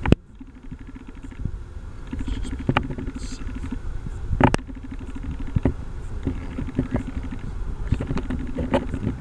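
A few sharp clicks and knocks from hands working the throttle linkage on a John Deere 140 lawn tractor, the loudest about halfway through, over a low rumbling noise.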